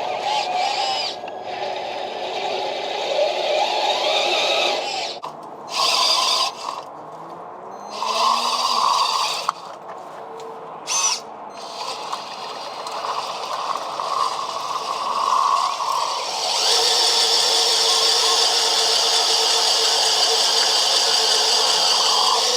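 Electric drive of a JDM-98 RC bulldozer whirring in stop-start bursts with short pauses, then a steady, louder grinding and scraping from about two-thirds of the way in.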